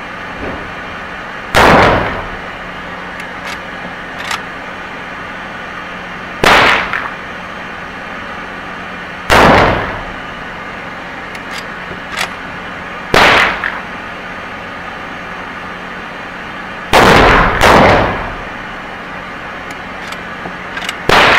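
Uberti 1873 Sporting Rifle, a lever-action, being fired offhand, a shot every three to four seconds, with two shots close together late on. Each shot echoes briefly off the range walls, and the lever clacks as the action is cycled between shots.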